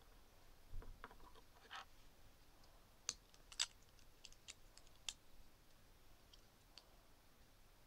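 Plastic Lego bricks clicking and scraping as they are handled and pressed together, about a dozen short sharp clicks with a brief scrape, loudest about halfway through.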